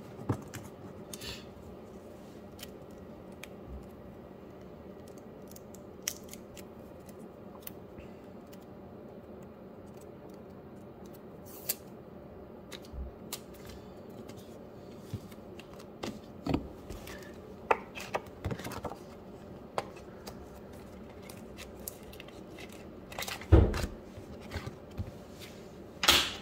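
Scattered light clicks and taps of rigid plastic card holders being handled and stacked on a desk mat, with the loudest clatter about three seconds before the end, over a faint steady hum.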